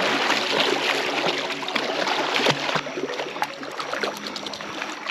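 Water splashing and sloshing as someone wades across a shallow creek, with many small splashes that are louder at first and thin out after about three seconds.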